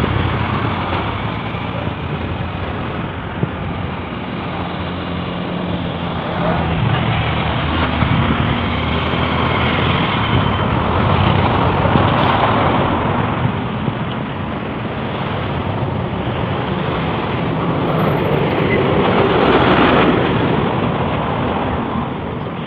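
Wind buffeting a phone's microphone in gusts: a loud, rough rushing that swells and eases every few seconds.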